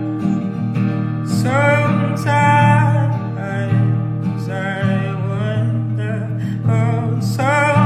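Music: a slow song with guitar accompaniment and a wavering melody line that comes in about a second and a half in and returns twice.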